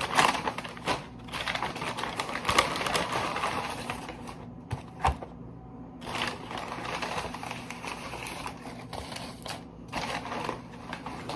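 Crinkling and rustling of a paper takeout bag and food packaging being handled and opened, in irregular crackly clicks, with a short break about halfway through.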